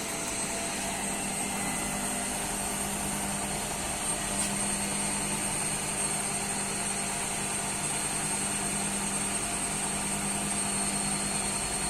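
IFB washing machine in its spin cycle with a soft toy load: the drum spins steadily, with a low motor hum and a thin, steady high whine.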